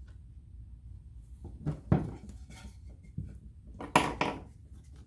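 Wooden 2x4 boards being set down and knocked against each other during a glue-up: a double knock about two seconds in and a louder clatter of knocks about four seconds in, over a low steady hum.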